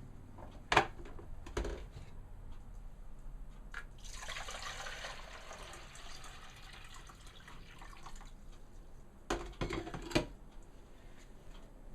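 Water being poured for about four seconds, a steady splashing hiss, with a few light knocks and clicks of handling before and after it.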